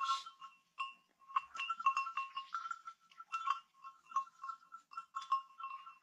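Nestling birds cheeping in the nest: short, high peeps alternating between two pitches, several a second, with a brief pause about a second in.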